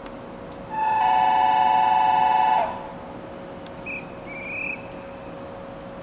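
Train horn sounding once for about two seconds, two tones together, then cutting off sharply. Two short, faint, rising high chirps follow a little later over a steady hum.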